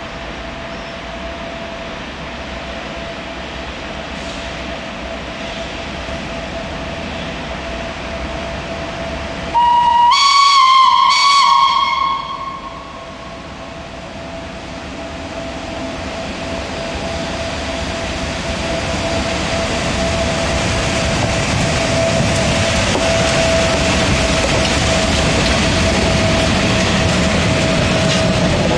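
SBB Ce 6/8 'Crocodile' electric locomotive with a special train approaching through a station. About ten seconds in, a whistle blast of about three seconds steps up in pitch partway. The running noise grows steadily louder until the locomotive rumbles past near the end.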